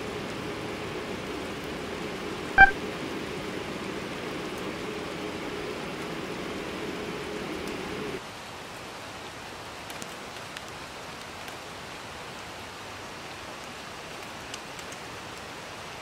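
A hot pot simmering on an Iwatani cassette gas stove: a steady bubbling and burner hiss, with one short, sharp ringing click about two and a half seconds in. After about eight seconds the sound drops to a quieter, steady hiss.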